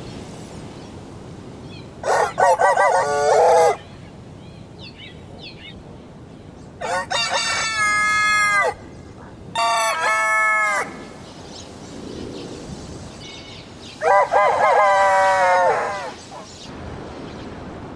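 Rooster crowing four times, each crow a long cock-a-doodle-doo of about two seconds, with a short gap between the second and third.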